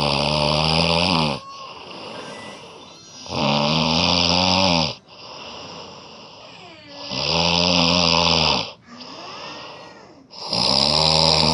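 Very loud snoring: four long snores, about one every three and a half seconds, with much quieter breaths between them.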